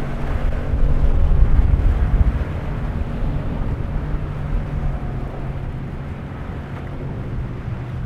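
Outboard motor running at a steady high speed as a center-console boat runs out through choppy inlet water, over a low rumble of wind and water that is loudest about one to two seconds in.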